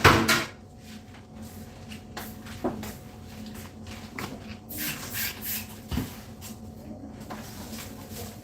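Household handling noises: a loud clatter at the start, then scattered knocks and bumps, a short hiss about five seconds in and a thump at about six seconds, over a faint steady hum.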